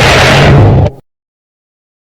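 A loud, rumbling, noisy sound effect that fades sharply and cuts off about a second in, leaving dead silence.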